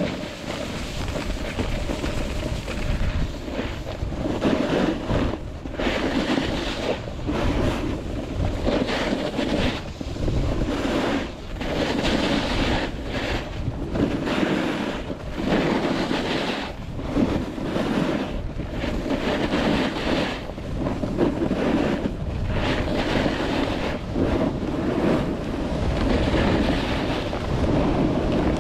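Wind rushing over the microphone and skis scraping on packed snow during a downhill ski run. The noise swells and eases about every second and a half as the skier links turns.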